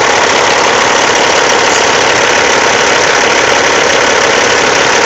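Caterpillar C15 six-cylinder diesel engine idling steadily.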